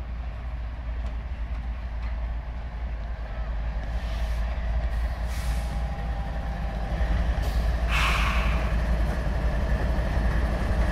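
A freight train led by GE ES44DC and ES44AC-H diesel locomotives approaching, their engines giving a deep steady rumble that grows louder about seven seconds in. Two short hisses are heard, a fainter one about four seconds in and a louder one about eight seconds in.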